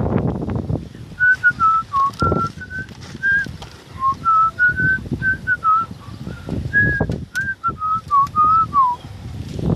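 A person whistling a tune: a single clear line of short held notes stepping up and down, starting about a second in and stopping shortly before the end, over a few low bursts of rumbling noise.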